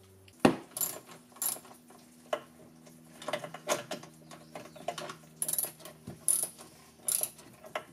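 Hand socket ratchet clicking in short, irregular bursts while tightening small nuts, with light metallic clinks between the strokes.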